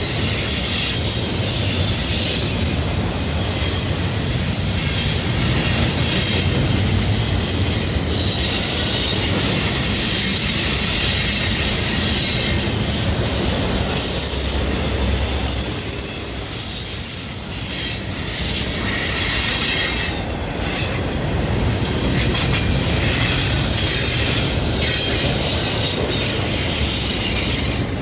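Double-stack intermodal freight cars rolling past: a steady low rumble of wheels on rail, with high-pitched wheel flange squeal at several pitches coming and going as the wheels grind against the rail on the curve.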